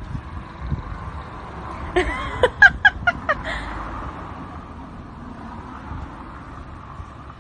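Outdoor background rumble, with a quick run of five or six short chirping calls about two seconds in.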